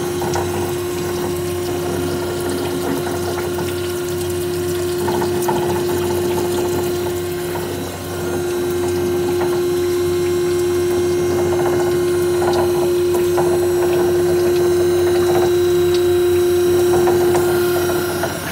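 Gear-driven machine running, a steady hum under the splashing of lubricating oil streaming over its gears. The steady tone cuts off near the end.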